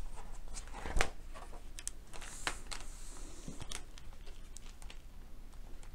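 A page of a hardcover picture book being turned by hand: paper rustling and a few light clicks, the loudest about a second in.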